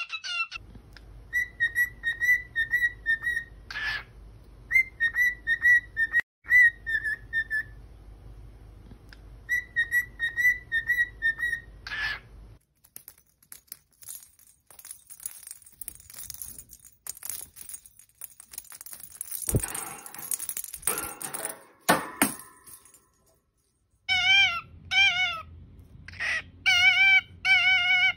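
Cockatiel whistling a tune in phrases of short repeated notes, then a stretch of scratchy noise with clicks, then warbling, wavering calls near the end.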